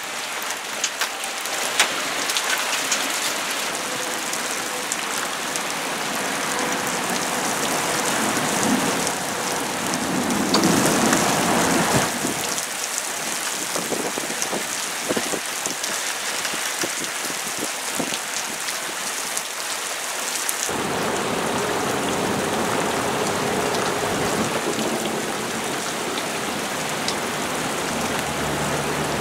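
Heavy rain pouring down steadily and splashing on pavement and car roofs. It swells louder about a third of the way in, and the sound changes abruptly twice.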